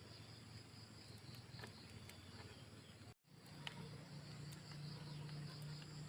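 Faint steady insect chirring over a low hum, with a brief dropout about three seconds in and a few light clicks after it.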